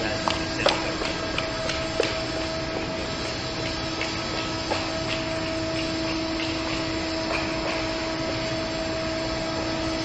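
Steady motor hum with a constant whine, from the hoist lifting the loaded car platform by cable, with a few light clicks in the first couple of seconds.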